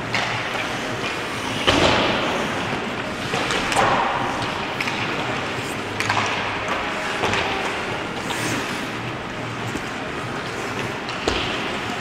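Ice hockey play in an indoor rink: skates scraping the ice under a steady wash of noise, broken by a few sharp knocks of sticks and puck, the loudest about two seconds in and another near the end. Players' voices call out now and then.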